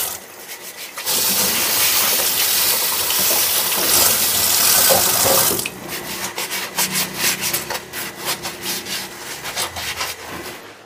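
Kitchen tap running onto dishes and utensils in a stainless steel sink. A little over halfway through the water stops, and a run of quick scrubbing and clattering strokes follows as the dishes are washed.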